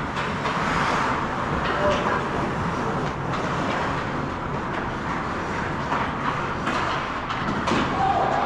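Hockey game ambience: a steady wash of noise with indistinct voices and scattered sharp clacks.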